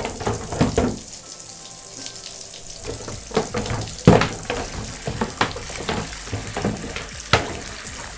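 Water running from a tap into a bathtub, with plastic dog discs knocking and clattering against the tub and each other as they are put in to soak. The knocks come irregularly; the loudest is about four seconds in.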